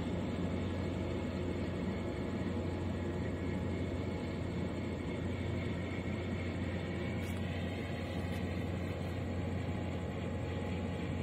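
Steady low mechanical rumble with a constant low hum, like distant engines and machinery, unchanging throughout.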